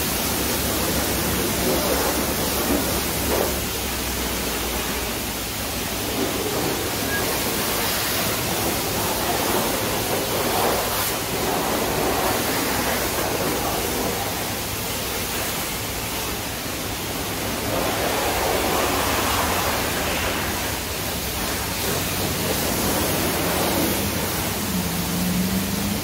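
Steady hiss of water spraying on a camper van in a car wash.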